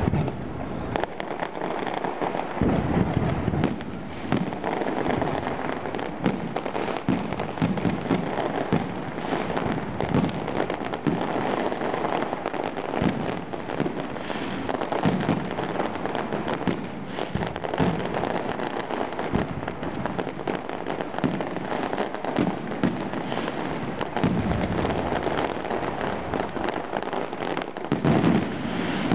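Fireworks display: a continuous barrage of crackling bangs and bursts, with heavier booms now and then.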